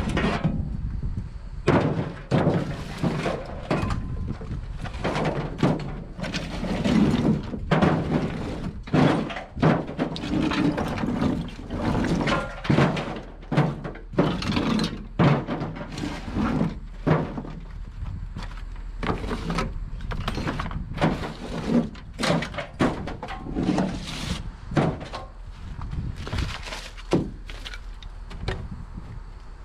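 Irregular metal knocks, clanks and clatters of scrap from a wrecked vehicle being pulled apart and handled by hand, over a low steady rumble.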